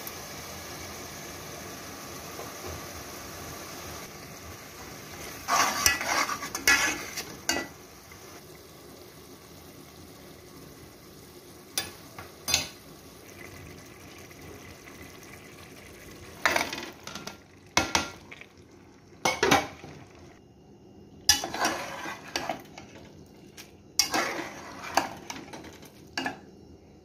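Masala sizzling in an aluminium pot, with a spoon stirring and scraping against the pot in several bursts of clinks and scrapes, the first about six seconds in and more of them through the second half.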